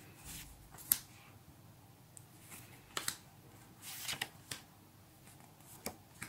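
A stack of Panini stickers handled by hand: soft flicks and swishes as single stickers are slid off the stack and dropped onto a pile, about ten at irregular intervals.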